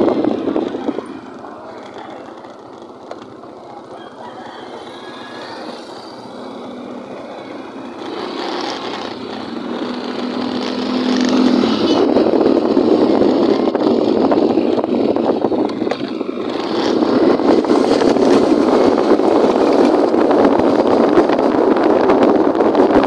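Wind rushing over the microphone of a moving motorcycle, with the ride's road and engine noise under it. The rush falls away after the first second, stays low for several seconds, then builds up again from about eight seconds in as the bike picks up speed, with a short steady hum just before eleven seconds.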